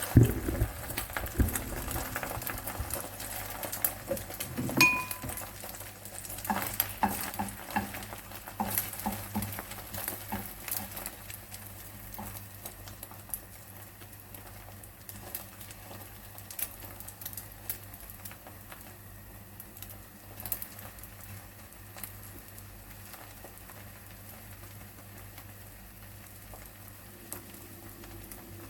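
Beaten eggs frying in an oiled frying pan: a faint sizzle with scattered crackles. Utensils knock and clink against the pan in the first part, one knock with a short ring about five seconds in, and the sound thins out later.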